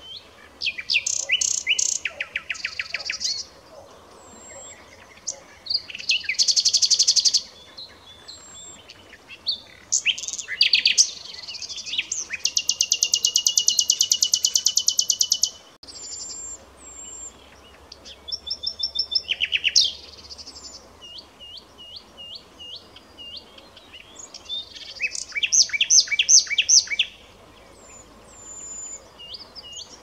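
Common nightingale singing: a run of varied phrases of rapid repeated notes and rattling trills, with one long fast trill about halfway, separated by short pauses and thin whistled notes.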